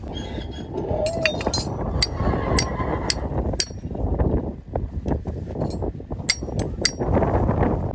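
Irregular sharp metallic clinks as a horseshoe is set on a mule's hoof and tapped with a farrier's hammer, over a low steady rumble.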